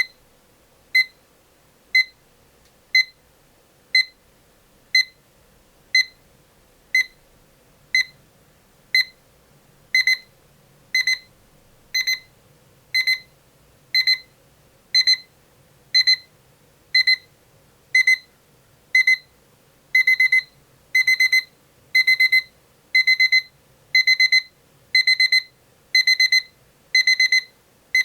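Rhythm 8RZ168SR08 alarm clock's electronic alarm: a high-pitched beep repeating once a second. It escalates in steps, from single short beeps to longer double beeps about ten seconds in, then to bursts of rapid beeps about twenty seconds in.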